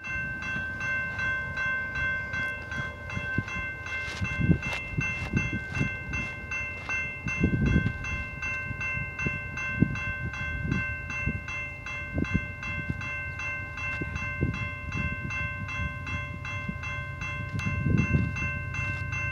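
Railroad crossing warning bells ringing in a fast, steady repeating ding as the crossing gates come down, the sign of an approaching train. A low, gusty rumble runs underneath, swelling a few times.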